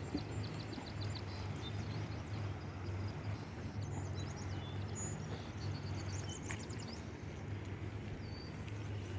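Outdoor ambience over open water: a steady low rumble, with small birds chirping in quick, high trills a few times.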